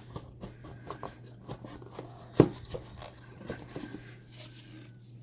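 Cardboard packaging being handled and opened by hand: scattered light taps and rustles, with one sharp knock about two seconds in, over a steady low hum.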